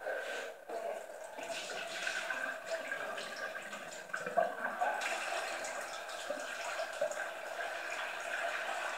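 Tap water running and splashing while wheat grains are rinsed.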